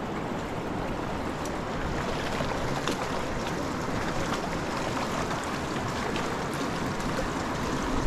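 Steady rushing of a river's current, with faint small splashes in it.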